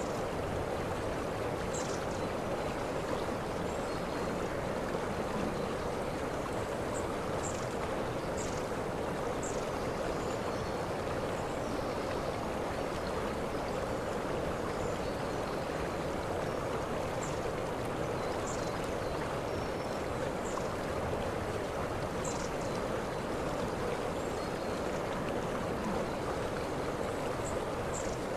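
Waterfall: a steady, unbroken rush of falling water, with short, faint, high chirps now and then.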